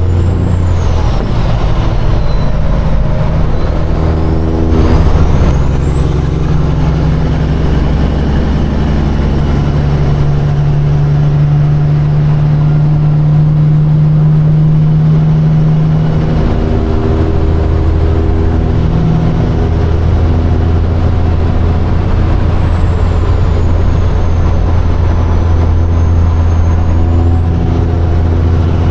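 Caterpillar diesel engine of a Peterbilt semi truck pulling hard as the rig gains highway speed, heard from inside the cab. The engine note steps to a new pitch with gear shifts about five seconds in and again around the middle.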